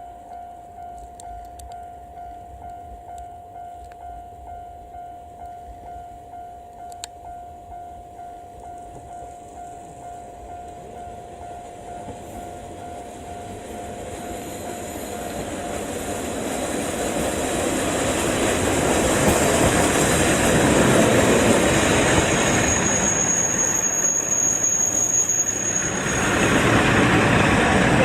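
A Japanese level-crossing warning bell rings with a steady repeating ding. Then a JR KiHa 40 series diesel railcar approaches, growing louder from about halfway, and runs past the crossing with engine and wheel noise. A high wheel squeal comes near the end.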